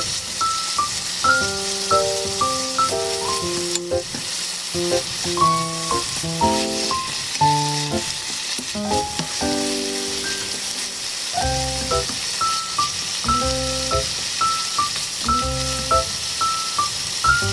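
Seasoned chicken breast strips sizzling as they pan-fry, a steady hiss. A background music melody of short notes plays over it.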